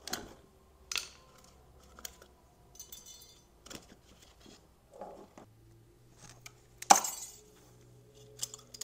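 Metal clinks and knocks as a steering rack and its loose parts are handled over an oil drain pan, with one loud clank about seven seconds in.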